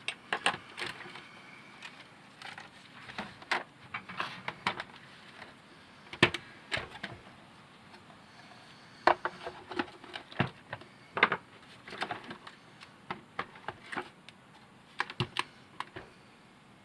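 Irregular sharp clicks and taps of hard plastic, some in quick clusters: the robot vacuum's parts being handled and put back together.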